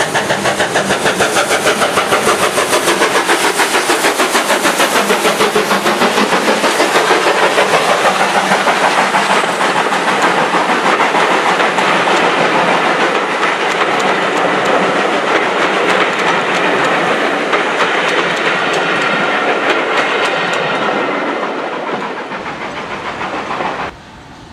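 Steam locomotive working hard as it runs past, its exhaust beating rapidly at about five beats a second. Then the coaches rush by, with the clickety-clack of wheels over rail joints. The sound thins out and drops away abruptly near the end.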